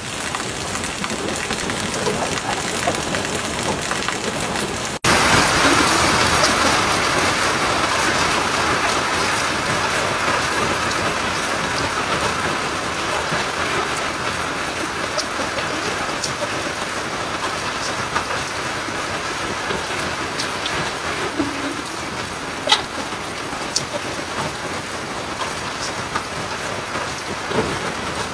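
Coated chicken pieces frying in hot oil in a pan: a steady sizzle that gets suddenly louder about five seconds in, with a few sharp pops and crackles.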